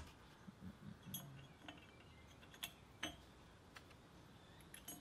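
Faint, scattered small clicks of steel nuts, bolts and washers being handled on a workbench, about half a dozen over a few seconds against a quiet room.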